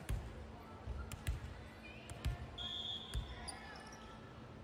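Volleyballs thudding on a hardwood gym floor and off players' hands: several dull thumps roughly a second apart, echoing in the gym, with voices and a brief high squeak a little past the middle.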